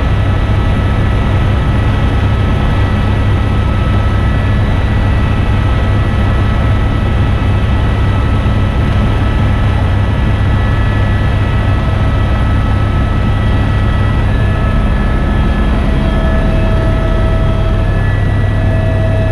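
Tour helicopter in flight, heard from inside the cabin: a loud, steady drone of rotor and engine with a deep low hum and a few thin, steady high whines over it.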